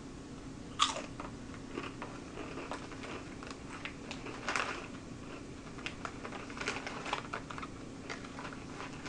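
Crisp vegetable chips being crunched and chewed: a scatter of short, sharp crackles with a few louder ones. The plastic chip bag crinkles as hands pick through it.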